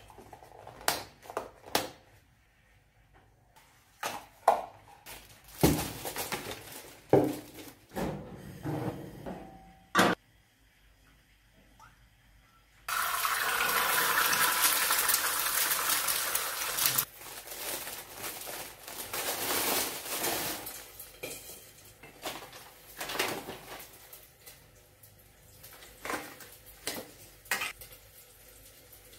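Kitchen handling sounds: scattered knocks and clicks of a plastic cup and lid. About 13 seconds in, an egg starts sizzling loudly in hot oil in a frying pan; the sizzle drops to a softer hiss after about four seconds, and then knocks of containers on the counter come back.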